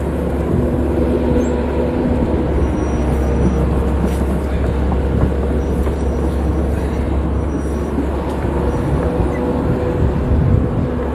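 An engine running steadily with a deep, even rumble, as from a motor vehicle.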